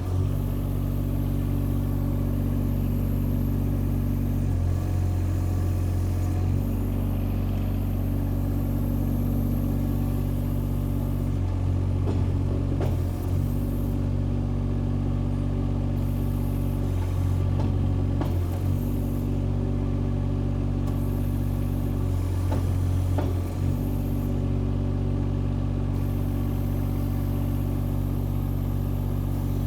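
Compact track excavator's engine running steadily, its tone changing briefly four times, each change lasting a second or two, as the machine is worked.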